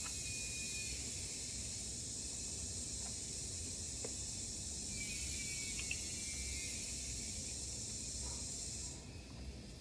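Insects droning in a steady high-pitched chorus, which cuts off abruptly near the end.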